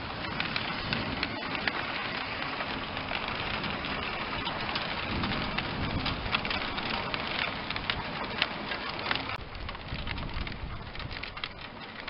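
Heavy rain pouring down in a thunderstorm downpour: a dense pattering hiss full of sharp drop hits, easing a little near the end.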